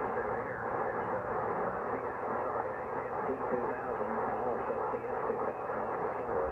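A distant ham operator's voice received on 40-metre single sideband, played through the Kenwood TS-180S transceiver's speaker. The speech is thin, with no highs, under a steady hiss of band noise.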